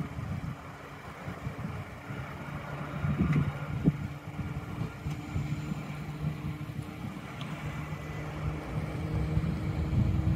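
A steady low engine hum and rumble, with wind buffeting the microphone.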